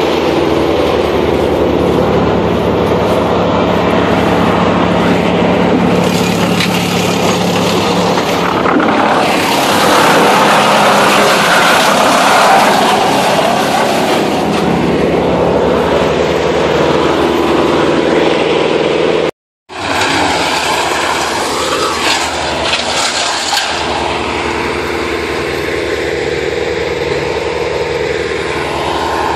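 Towable wood chipper running at speed, its engine drone steady, with a louder, rougher stretch in the middle as branches go through the chipper. The sound cuts out completely for a moment about two-thirds of the way in.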